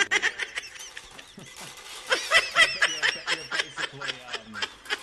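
A person snickering and giggling in quick, high-pitched pulses, several a second.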